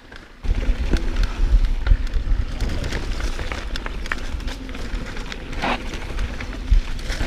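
Mountain bike riding fast down a rough dirt singletrack: wind rumbling on the action camera's microphone, with tyres crunching and the bike rattling and knocking over rocks and roots. It starts suddenly about half a second in and keeps up steadily.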